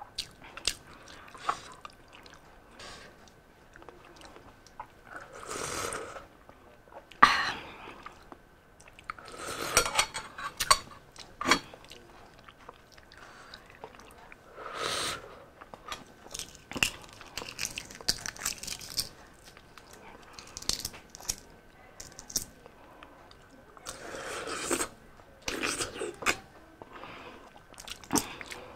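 Close-up eating sounds of balut (boiled fertilized duck egg): sharp crackles and clicks as the shell is picked and peeled by hand, with biting and chewing. There are a few louder stretches of a second or two.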